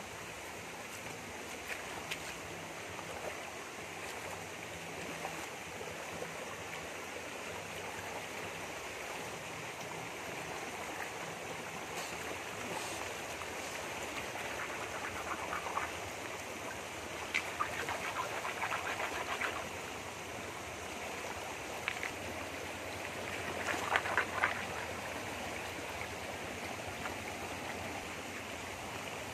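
A shallow rocky stream runs over stones with a steady rush of water. A few short clusters of splashing and clatter come in the middle and later part, from hands working in the water.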